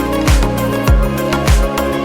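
Electronic dance music track with a steady kick-drum beat, about three thumps in two seconds, under sustained synth notes.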